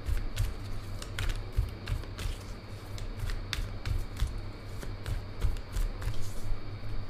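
A deck of tarot cards being shuffled by hand: a run of light, irregular card flicks and slaps, over a low steady hum.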